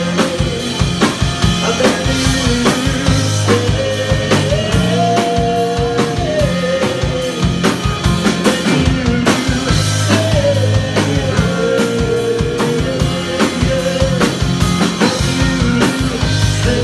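A live rock band playing an instrumental passage: a drum kit keeps a steady beat under bass, electric guitar and keyboard, with a sustained melody line that slides between held notes.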